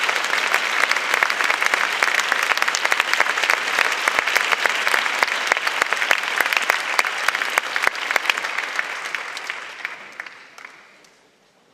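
Audience applauding: dense, steady clapping that thins out about nine seconds in and dies away.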